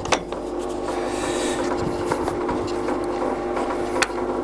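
Heymer & Pilz gap bed lathe running, with a steady hum from its headstock gearing while the speed range is shifted into high. A sharp click comes right at the start and another about four seconds in, as the range control is moved.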